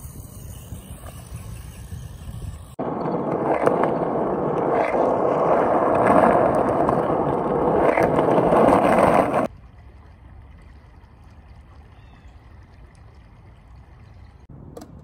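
Skateboard wheels rolling on an asphalt path: a loud, steady rolling rumble of about seven seconds in the middle that starts and stops abruptly. It is preceded by a low rumble and followed by a small stream trickling faintly.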